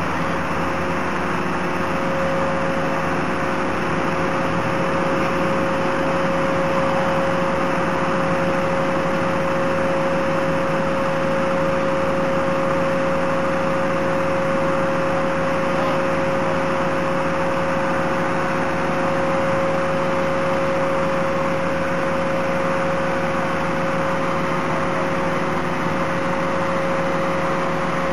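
Fire engine's aerial ladder running, its engine and hydraulic drive giving a steady drone with a constant whine as the ladder is moved.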